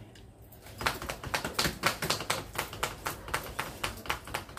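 Boiled eggshells being cracked and peeled by hand, a quick run of sharp clicks and crackles, about six a second, starting about a second in.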